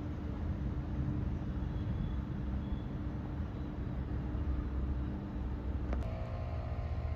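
Steady low engine rumble with a constant hum. About six seconds in there is a sharp click, and the hum gives way to a set of higher steady tones.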